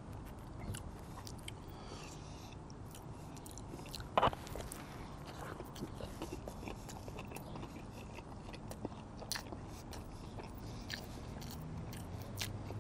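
Close-miked chewing of a fried chicken sandwich on a soft bun: quiet, wet mouth clicks and smacks, with one sharper click about four seconds in.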